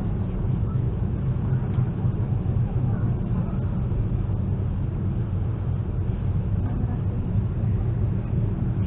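ESh2 electric train running at speed, heard from inside the carriage: a steady low rumble.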